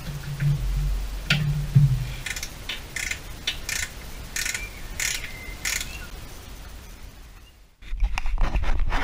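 Metal clinks and knocks from tools and exhaust hardware being worked under a car, some with a short metallic ring, over a low hum. The sound cuts out just before the end and picks up again as a low rumble.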